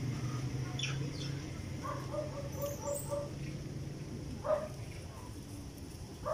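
Short squeaky animal calls: a quick run of about five short notes between two and three seconds in and another call a little after four seconds, over a low steady hum.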